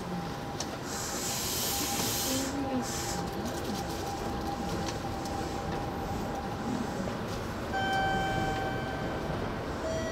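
Kintetsu electric express train running along the track: steady running noise with a faint steady whine and some hiss in the first few seconds. A louder pitched whine with overtones joins about eight seconds in.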